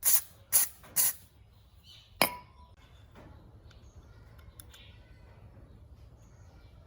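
Four sharp clinks of hard objects striking, three in quick succession in the first second and a fourth about two seconds in that rings briefly with a short tone.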